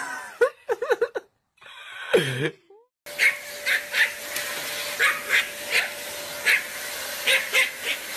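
A dog making wavering, whining vocal sounds in two bouts, the second falling low. Then a small fluffy dog, a Pomeranian, gives short high yips, about two a second, over a steady hum.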